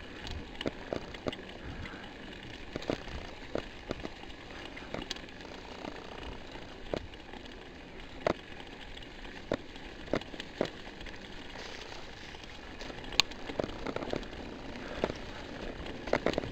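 Full-suspension mountain bike ridden over a dirt trail: steady tyre and rolling noise, with irregular sharp clicks and knocks as the bike rattles over bumps.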